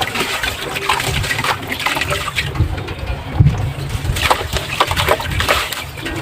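Soft sand cement crumbling as it soaks in water: a dense, continuous crackle of many small crumbles falling apart, with a watery wash underneath.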